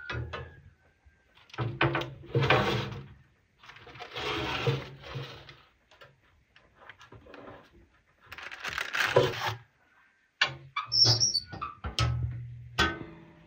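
Baking paper rustling and a metal baking tray scraping and knocking against a wood-burning stove's sheet-metal oven as the tray is checked and slid out. The sound comes in several separate handling bursts with short knocks.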